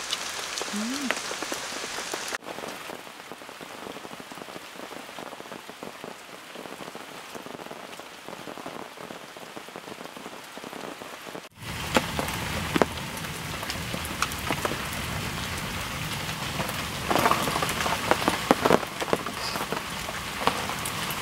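Heavy rain pouring down steadily. It gets louder and closer from about halfway, with many sharp taps.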